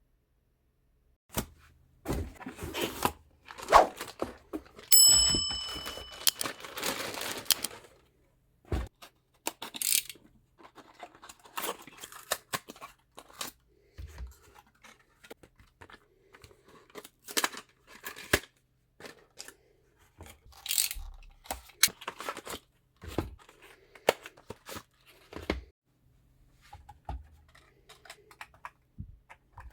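Packaging being handled and torn open: irregular tearing, crinkling and knocks, busiest in the first eight seconds, with a short high ring about five seconds in.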